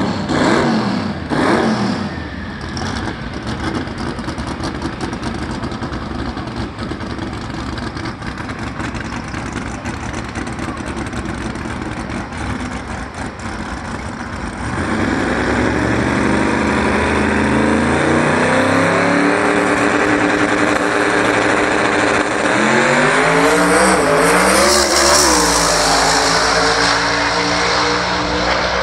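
Drag racing car's engine at the starting line: a couple of sharp revs, then a steady, loud rumble while staged. About halfway through it launches at full throttle, much louder, its pitch climbing, then dipping and climbing again a few times near the end as it shifts gears down the track.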